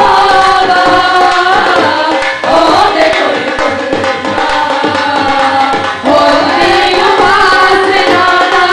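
A group of women singing a devotional worship song into microphones, in long held phrases that slide in pitch, with hand-drum accompaniment.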